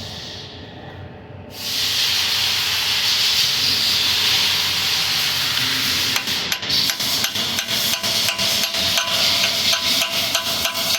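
Loud steady hiss starting about one and a half seconds in. From about six seconds in, a hammer taps steadily, about three blows a second, driving an oil passage plug into the engine block.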